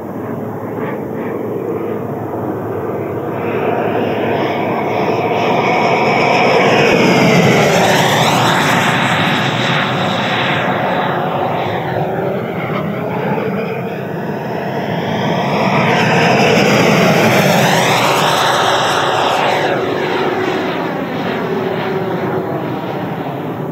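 Electric ducted fan (JETFAN-120 PRO) of a large RC jet model in flight, its whine and rush passing overhead twice. The sound swells to a peak about seven and seventeen seconds in and fades after each, with sweeping tones as it goes by.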